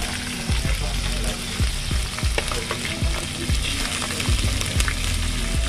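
Chicken pieces and chopped chillies sizzling in hot oil in an aluminium wok, with a metal spoon repeatedly clinking and scraping as it pushes the food off a plastic tray and into the pan.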